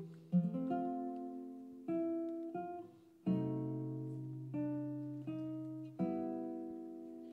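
Classical guitar playing a slow passage of plucked chords and notes, each one left to ring and fade before the next.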